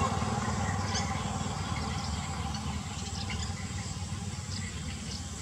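Small motorcycle engine running as the bike rides away, its sound slowly fading.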